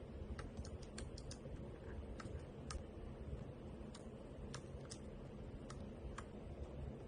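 Typing on a mechanical keyboard fitted with OEM-profile PBT pudding keycaps: about fifteen separate keystrokes at an uneven, unhurried pace of roughly two a second, each a sharp click.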